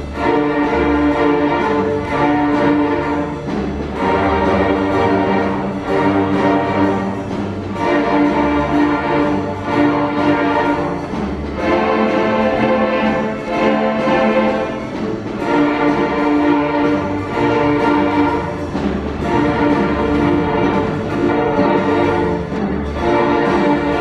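Student string orchestra of violins and cellos playing, bowing held chords that change every second or two.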